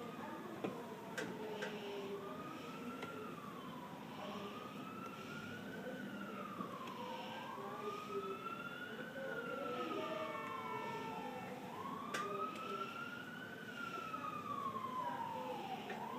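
Emergency vehicle siren wailing, its pitch rising and falling slowly, about one sweep every four seconds, with a few faint clicks.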